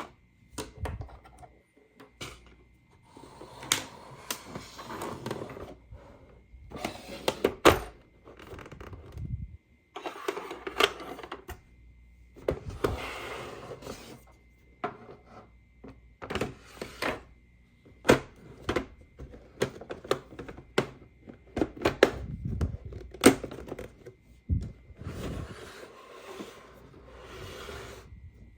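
Hard plastic toy pieces being handled: repeated sharp clicks and knocks, with several stretches of rustling and scraping in between.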